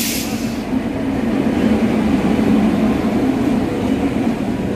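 Passenger train pulling in alongside a station platform: the locomotive and coaches roll past with a loud, steady rumble. A loud hiss fades out about half a second in.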